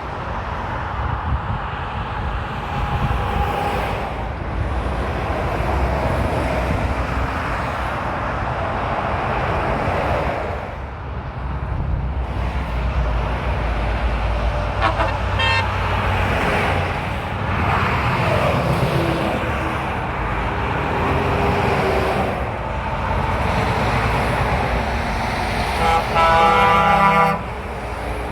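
Lorries passing on a motorway, engine and tyre noise swelling and fading as each goes by. Near the end a truck horn blows once, a loud chord-like blast of about a second that cuts off sharply.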